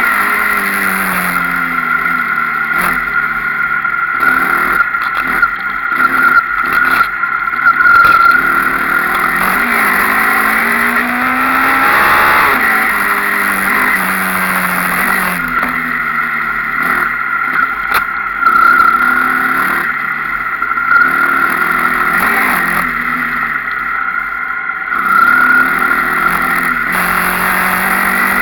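Enduro dirt bike engine revving up and down over and over as the rider accelerates and backs off, with the pitch climbing and falling every few seconds. Scattered sharp knocks run through it.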